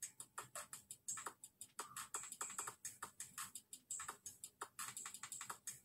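Faint, irregular clicking and crackling, several clicks a second, from a pot of seasoned water with eggs at a rolling boil.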